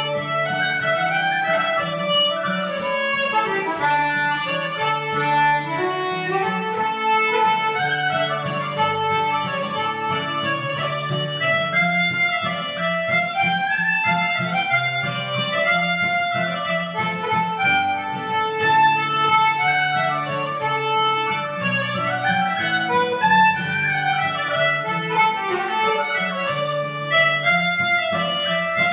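Irish traditional tune played on uilleann pipes, squeezebox accordion and acoustic guitar together: a quick, continuous reedy melody over sustained low chords and strummed guitar.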